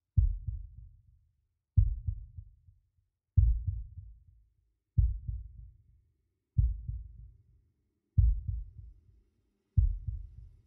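Deep, heartbeat-like low thumps from the piece's electronic sound score, seven of them about every 1.6 seconds, each fading away over about a second. A faint low hum comes in about halfway through.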